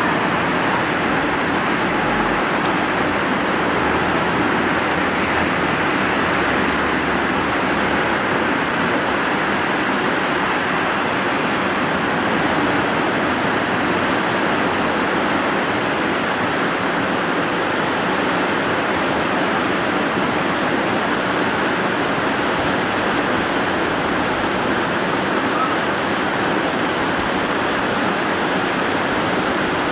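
Fast-flowing floodwater rushing, a loud, steady noise of moving water.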